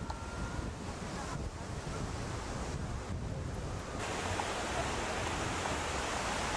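Steady rushing of surf and wind buffeting the microphone, with the noise level jumping abruptly a few times.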